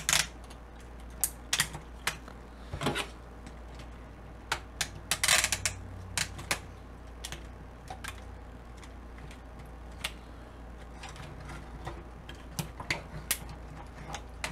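Plastic clicks and clatter from the parts of a Playmates 16-inch Legendary Voltron action figure being handled. The wings are fitted onto its back and the figure is turned round on the shelf. The clicks come irregularly, with a quick run of them about five seconds in.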